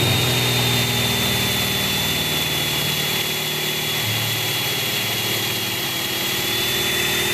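Ryobi power drill with a long extension bit running steadily under load, boring a hole down through wood for a cable run, with a steady high whine over its motor hum.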